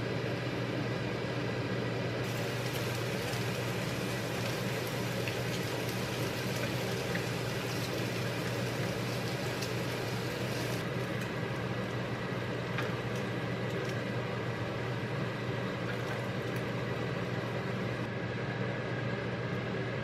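Pork belly slices sizzling and crackling in a nonstick frying pan as they are turned with metal tongs, over a steady low mechanical hum. The sizzle is brightest from about two seconds in until about halfway through, then eases off.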